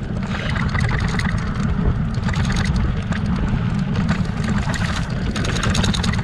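Electric mountain bike riding over a dirt track: steady wind buffeting and tyre rumble on the handlebar-mounted camera's microphone, with small rattles and ticks from the bike over loose ground.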